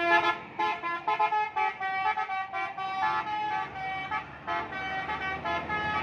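A tour bus's telolet horn, a multi-tone musical air horn, playing a quick tune of many short notes that step up and down in pitch, with brief gaps between phrases.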